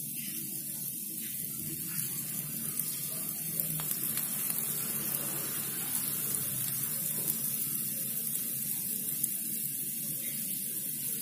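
Balls of banana-and-maida fritter batter deep-frying in hot oil on a low gas flame: a steady sizzle with light crackling as the oil bubbles around them.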